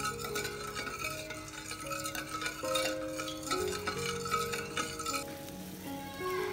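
A ladle stirring liquid in a stainless steel pot, with scraping and light clinks against the pot, over background music; the stirring stops about five seconds in.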